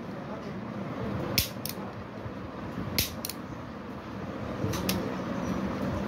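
Sharp metallic clicks from a hammer-fired, Glock-pattern pistol in 7.62x25mm Tokarev as its parts are worked by hand: about five clicks, mostly in quick pairs about a second and a half apart, over a steady background hum.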